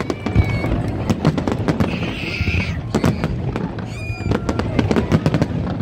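Fireworks display: a dense, unbroken run of pops and crackles from bursting shells over a low rumble, with a short hiss about two seconds in.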